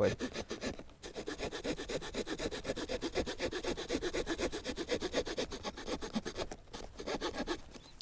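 The small saw blade of a Boker Plus Tech Tool 7 folding multitool sawing back and forth through a soft poplar stick in quick, even strokes. It starts about a second in.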